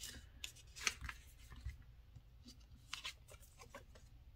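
Tarot cards being handled: a few faint flicks and slides of card stock, about a second in and again near three seconds, over quiet room tone.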